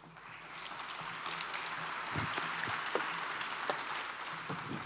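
Audience applauding, building over the first two seconds, then holding and thinning out near the end.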